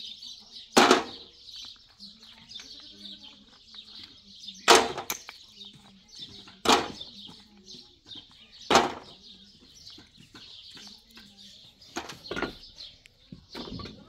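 A series of loud, sharp strikes, mostly about two seconds apart with a quicker cluster near the end, over a steady background of birds chirping.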